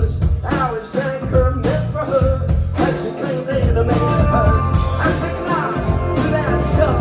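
Live band playing a song with drums keeping a steady beat and a man singing into a microphone.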